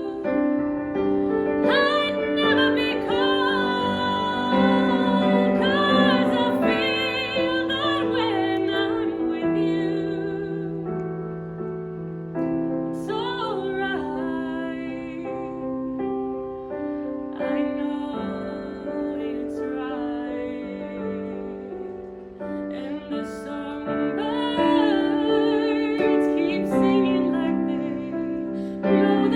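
A woman singing a slow ballad with vibrato on her held notes, over piano accompaniment; the voice pauses for several seconds midway while the piano carries on, then comes back near the end.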